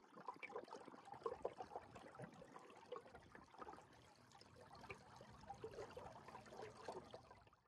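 Faint small waves lapping and trickling over a pebble shoreline, an irregular scatter of tiny splashes.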